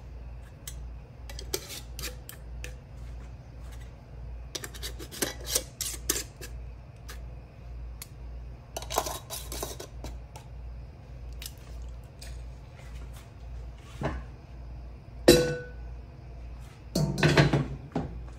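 Metal canning lids and screw bands clicking and scraping against glass Mason jars as they are set on and twisted fingertip tight: a string of light clinks. A sharper ringing metal clink comes about 15 seconds in, and a louder clatter near the end.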